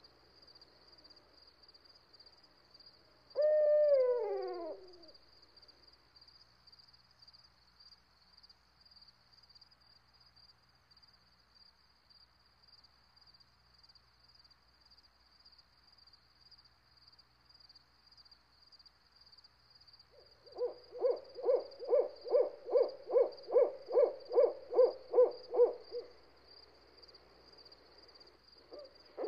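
Bird calls: a single falling, whinny-like call about four seconds in, then a long series of evenly spaced notes, about three a second, from about twenty seconds in, starting again right at the end. Under them runs a faint steady high whine.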